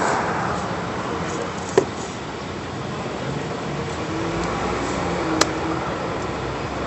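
Steady street traffic noise, with two short sharp clicks, one early and one about two thirds of the way through.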